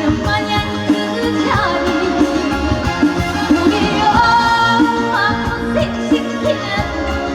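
A woman singing a trot song live over an amplified band backing track with a steady drum beat. She holds one long note about four seconds in.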